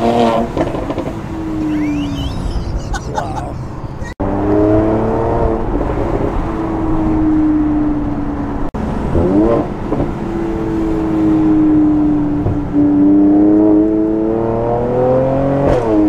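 Mercedes-AMG C43's engine heard from inside the cabin while driving, its pitch sagging and rising with the throttle. Near the end it climbs steeply, then drops suddenly as it shifts gear.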